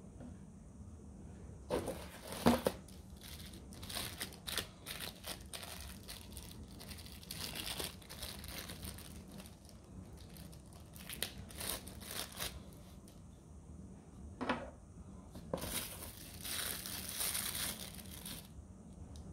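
Plastic packaging crinkling and tearing as small accessories are unwrapped by hand, in scattered rustles with sharp clicks of hard plastic parts. A longer stretch of crinkling comes near the end.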